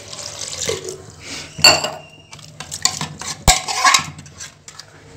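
Steel ladle stirring milk into carrot paste in a metal pressure cooker, clinking and scraping against the pot. There is a ringing clink about a second and a half in and a sharp knock about three and a half seconds in.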